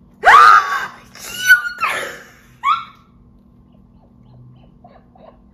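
A woman's excited high-pitched squeals, three or four short shrieks rising and falling in pitch in the first three seconds, as she reacts to her photo card pull. Faint short rising vocal sounds follow near the end.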